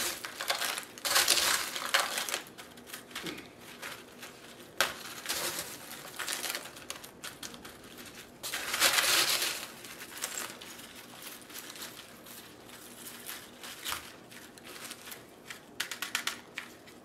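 Chunky orchid potting mix of pumice, perlite, fine bark and charcoal rattling and crunching as hands scoop it into a small plastic pot around a slipper orchid's roots. It comes in gritty bursts full of small clicks, loudest just after the start and about nine seconds in, with lighter clicking between.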